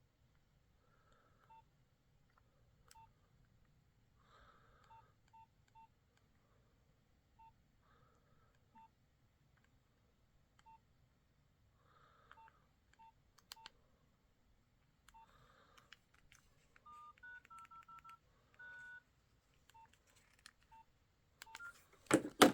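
Nokia 6030 mobile phone keypad beeping: short single beeps at irregular intervals as keys are pressed. Near the end comes a quick run of two-tone dialing beeps, and a loud knock closes it.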